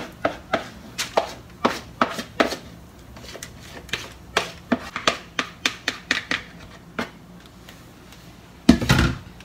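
Rubber spatula scraping and tapping against the inside of a plastic mixing bowl as batter is scraped out, a run of sharp clicks about two a second that quickens in the middle, with one louder knock near the end.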